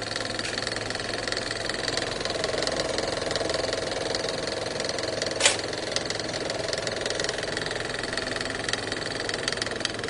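A steady mechanical whirring and rattling with a low hum under it, broken by one sharp click about five and a half seconds in.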